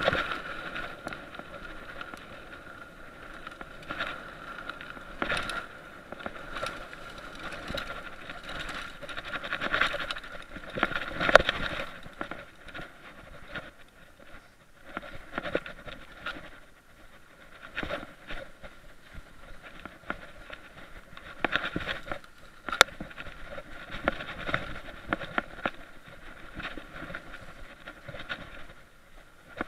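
Mountain bike ridden over a rough dirt and grass trail, picked up on a body-mounted action camera: a steady muffled rush of riding noise broken by irregular knocks and rattles from the bike over bumps, with two sharp knocks, one about a third of the way in and one about three quarters in.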